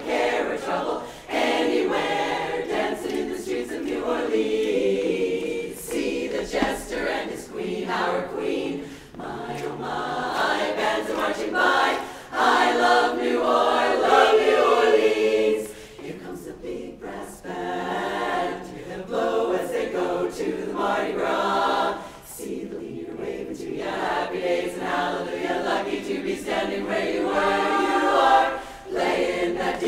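Large women's chorus singing a cappella in sustained chords, the phrases broken by short breaths. It swells to its loudest near the end.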